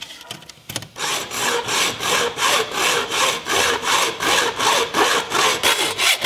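A few light handling clicks, then from about a second in a hacksaw cutting through a flexible corrugated metal furnace exhaust pipe in steady back-and-forth strokes, about three a second, trimming the pipe to length.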